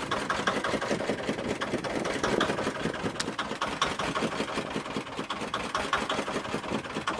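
Engine of a wooden river longboat running steadily under way, a fast even beat.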